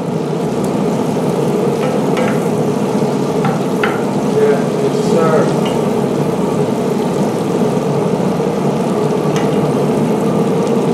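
Small Yukon Gold potatoes, garlic cloves and butter sizzling steadily in a cast-iron skillet on a pellet grill while a wooden spatula stirs them, with a few short scrapes and knocks of the spatula, over a steady hum.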